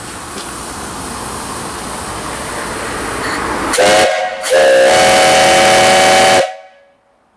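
Antique brass steam whistle on a freshly built vertical fire-tube boiler. Steam hisses, growing louder, and then the whistle sounds loud: a brief toot, then a held blast of about two seconds that cuts off sharply.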